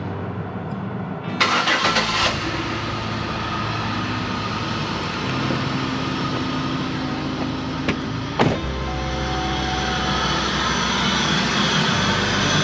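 A 2004 Buick LeSabre's V6 engine idling steadily, run to check the new aluminium heater hose elbows for coolant leaks. A few clicks sound about two seconds in, and two sharp ones just past the middle.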